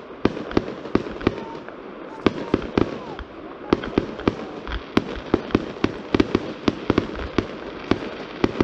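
Fireworks display: aerial shells bursting in a quick, uneven string of sharp bangs, several a second, with a short lull about three seconds in.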